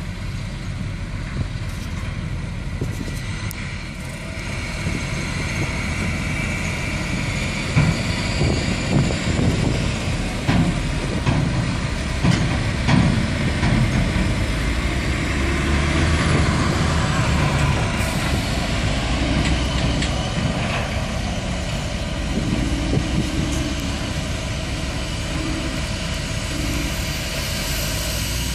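Heavy diesel engines of a Hitachi ZW310 wheel loader and dump trucks running as the loader works the sand pile, with the engine noise rising and falling and scattered sharp knocks.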